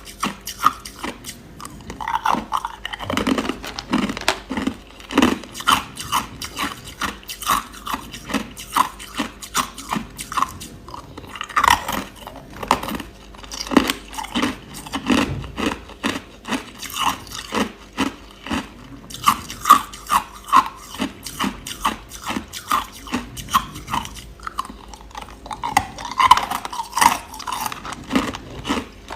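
Crushed ice crunched between the teeth and chewed close to the microphone: a steady run of sharp, brittle crunches, a few each second.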